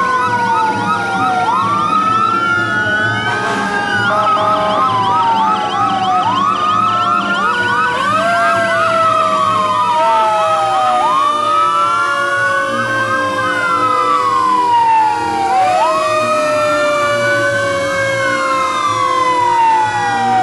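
Several fire engine sirens sounding at once as the trucks pass slowly: slow wails rising and falling every few seconds, overlapping with fast yelping warbles, over the low rumble of the trucks' engines.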